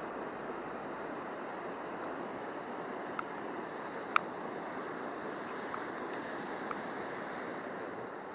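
River water running steadily over shallow rapids, with a few brief sharp ticks, the loudest about four seconds in.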